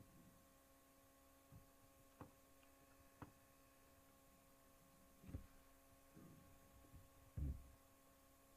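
Near silence with a steady electrical hum, broken by a few faint clicks and two soft knocks, the last two louder, about five and seven seconds in.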